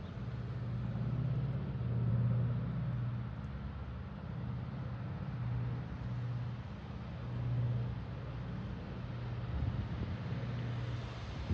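The B-29 Superfortress's four Wright R-3350 radial piston engines running at a distance as the bomber flies away. It is a low, steady hum that swells and fades every second or two.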